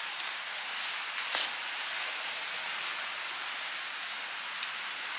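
Wind rushing through the forest trees, a steady, even hiss of moving leaves, with one short click about a second and a half in.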